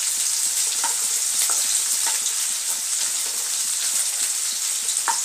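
Chopped vegetables sizzling steadily in hot oil and butter in a nonstick pot, with a wooden spatula stirring them and scraping and tapping against the pan now and then.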